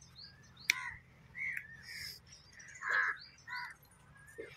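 Crows cawing several times in short harsh calls, the loudest about three seconds in, with small birds chirping higher up. A single sharp click comes just under a second in.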